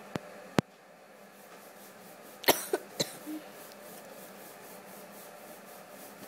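Two sharp clicks near the start, then a short cough-like sound from a person about two and a half seconds in, over a faint steady hiss.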